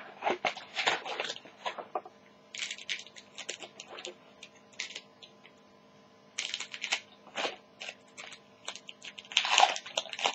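Shiny trading-card pack wrapper crinkling and rustling in quick crackly clusters as the pack is handled and cut open with scissors.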